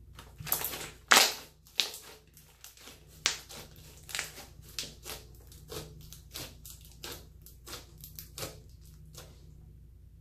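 Clear slime being squeezed and poked by hand, giving a string of sharp, wet clicks and pops from trapped air. The pops are loudest in the first few seconds, then come regularly, one or two a second.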